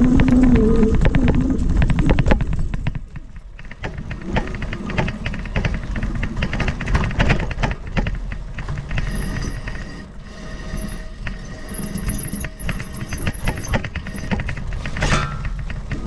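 Electric mountain bike rattling and clattering over a rough, leaf-strewn dirt trail, with a low rumble of ground noise. A brief voice-like sound comes in the first couple of seconds, and bursts of fast, high ticking join from about nine seconds in.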